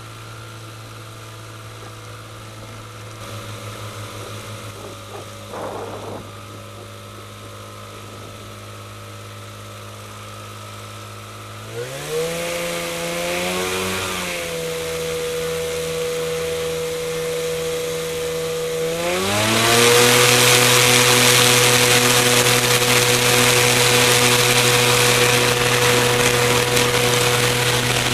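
Avid light aircraft's engine and propeller ticking over at idle, then revving up about twelve seconds in and holding a steady higher speed. About seven seconds later it opens up to full power and runs steady and loud for the takeoff roll.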